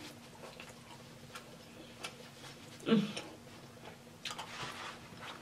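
Close-miked eating sounds of someone chewing pizza: scattered soft wet mouth clicks and smacks, with a short low "mm" about three seconds in.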